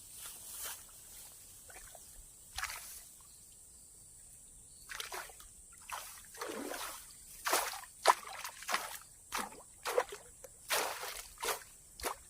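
Footsteps wading through shallow water and mud in a wet rice field, with splashes. The steps are sparse at first, then come about two a second from about five seconds in.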